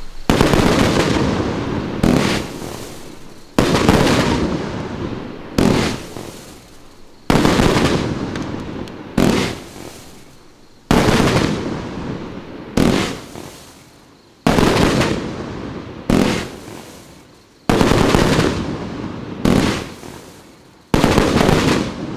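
Illuminati ILLpro14 firework cake, a 42-shot 1.4G professional cake, firing shot after shot. A sharp report comes about every two seconds, alternately louder and softer, and each fades out over a second or so.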